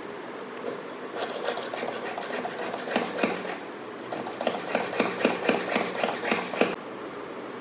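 Manual spiral-shaft (push-type) hand drill with a fine bit boring into white acrylic: rhythmic scraping strokes, about four a second, in two runs with a short pause between.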